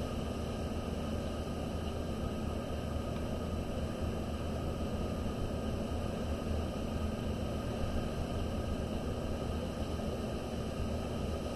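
Steady low hum with an even hiss, unchanging throughout: background room noise.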